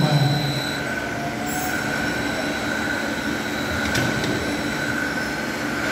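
Automated wine-barrel handling machine running, its electric gear motor and chain drive moving an oak barrel, with a steady high whine over an even mechanical noise. A faint click comes about four seconds in.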